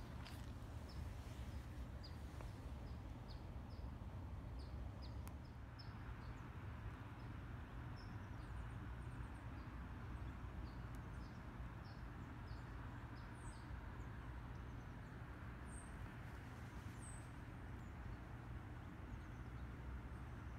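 Small birds chirping in short, high, repeated notes, faint over a steady low rumble.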